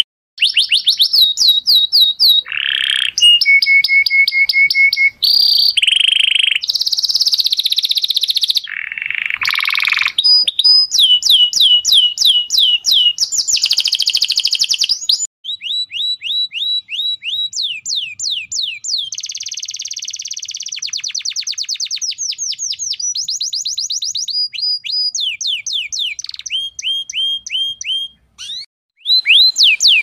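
Songs and calls of several kinds of songbirds, in short segments that change abruptly: quick runs of down-slurred chirps, fast trills and steady whistled notes, with brief silent gaps between a few of them.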